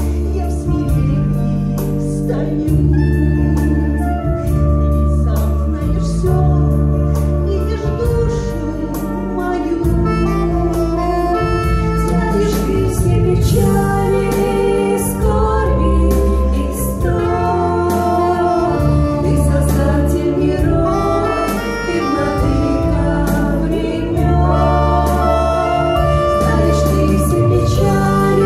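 Two women singing a Christian song in duet into microphones, over a recorded backing track of organ-like keyboard and steady bass.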